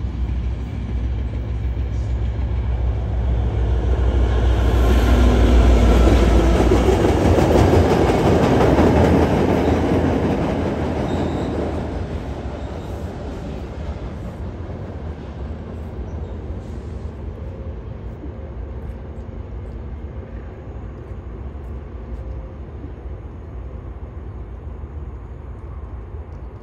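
Trinity Railway Express commuter train running over a rail bridge. It grows louder, is loudest several seconds in, then fades steadily as it moves away.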